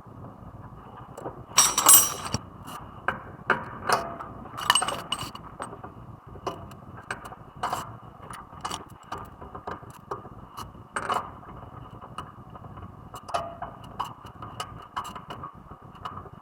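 Metal hand tools and brake parts clinking and knocking at irregular intervals, with a louder clatter about two seconds in and another sharp knock near eleven seconds.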